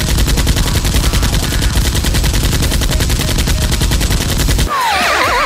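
Rapid automatic gunfire sound effect: a long unbroken burst that cuts off suddenly near the end, followed by wavering, sliding whistle tones.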